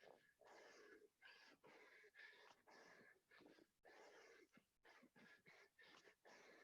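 A man panting hard from the exertion of a long set of burpees: faint, quick, rhythmic breaths in and out, about two a second.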